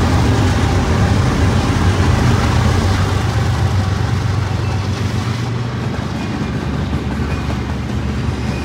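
BNSF freight train passing close at speed: the diesel locomotives' steady low drone, giving way about five and a half seconds in to the slightly quieter rolling noise of double-stack container cars on the rails.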